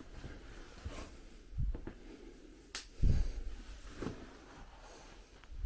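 Footsteps going down a staircase: a few irregular low thuds, the heaviest about three seconds in, with one sharp click between them.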